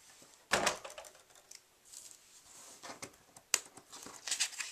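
Cardstock and crafting tools handled on a table: a few irregular sharp taps and clicks with light paper rustling, the loudest about half a second in, one at about three and a half seconds and a quick cluster near the end.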